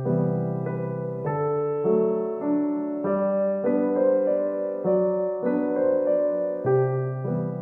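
Background piano music: a slow melody of held notes over low bass notes, changing about every half second.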